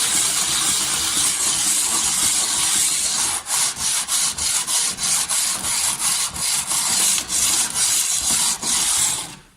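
VAZ 2114 camshaft bearing cap being rubbed back and forth by hand on abrasive paper, a continuous gritty scraping that falls into a rhythm of about two strokes a second midway and stops abruptly near the end. The cap's seating faces are being lapped down a little so the camshaft will sit tighter, as a cure for engine noise.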